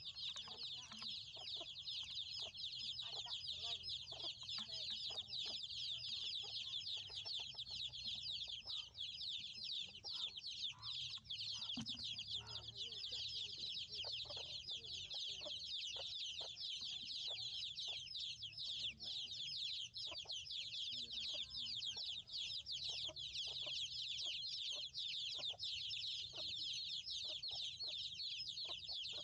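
A continuous chorus of high, rapid peeping from many chicks, with scattered faint knocks and rustles beneath it.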